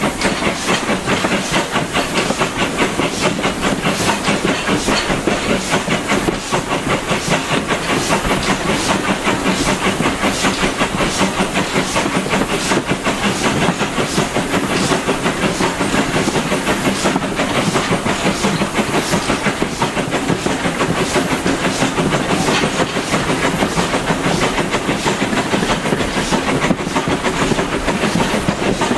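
A steam train under way: the LB&SCR A1 'Terrier' 0-6-0 tank engine working steadily with steam hissing, over the carriage's clickety-clack on the rails, in a fast, even, unbroken rhythm.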